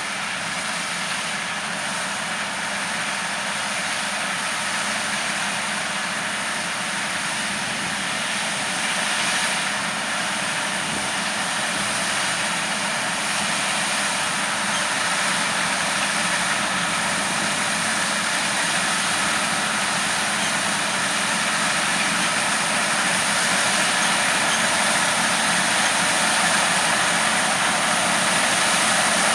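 Engine and machinery noise from farm harvest machinery running steadily, slowly growing louder.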